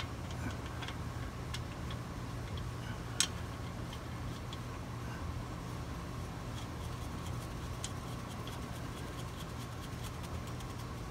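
Faint small metallic clicks and ticks, with one sharper click about three seconds in, as the magnetic drain plug of a rear differential is threaded in by hand. A steady low hum runs underneath.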